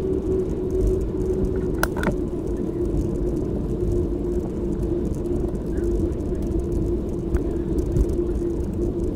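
Bicycle rolling along a tarmac lane, heard from the rider's own camera: a steady low rumble of wind on the microphone and tyre noise with a steady hum, and a couple of sharp clicks about two seconds in.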